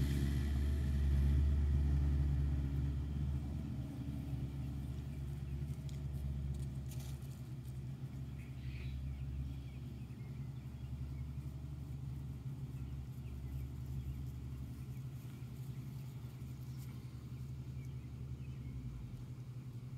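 Steady low mechanical hum of farm machinery, louder for the first few seconds and then easing to a constant drone.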